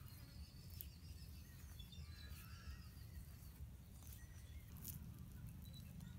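Quiet outdoor ambience: a few faint bird chirps over a low steady hum, with a few soft clicks.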